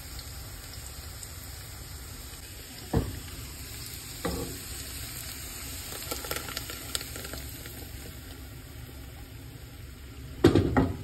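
Mutton sizzling steadily in a nonstick pot, broken by a few knocks. About six seconds in there is a short run of clatters as sliced carrots and green chillies are tipped in, and near the end comes a louder pair of knocks.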